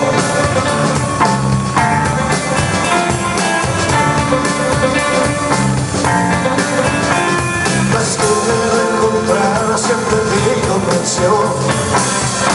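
Live rock band playing a song on electric guitars and drum kit.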